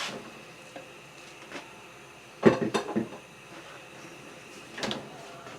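Kitchen clatter of cookware: a quick cluster of knocks and clanks about halfway through and one more knock near the end, as a pot and utensils are handled.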